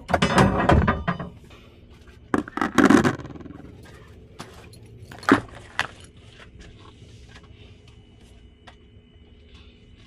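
Handling noises in a truck's sleeper cab: a rattling scrape in the first second and another about two and a half seconds in, then a couple of sharp clicks and soft rustling of bedding.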